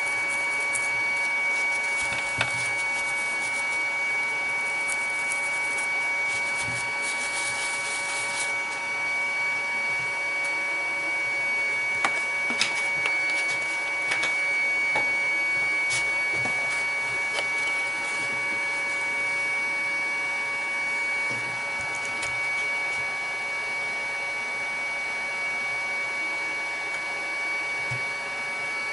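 A stiff brush scrubbing the solder side of a circuit board in the first several seconds, with a few light ticks later, over a steady electrical hum with a high whine.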